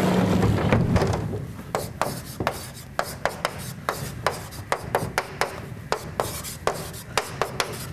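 A vertically sliding chalkboard panel rubbing along its frame as it is pushed up during the first second, then chalk writing on the chalkboard: a quick run of sharp taps and short scratches.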